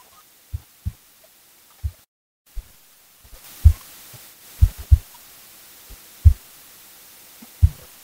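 Low, dull thumps at irregular intervals, about nine of them, over a faint steady hiss. The audio cuts out completely for a moment about two seconds in.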